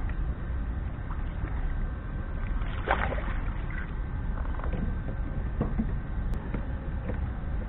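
A hooked bass splashing at the surface as it is hauled out of the water beside a kayak, once and sharply about three seconds in, with a few small knocks afterwards. A steady low rumble sits underneath.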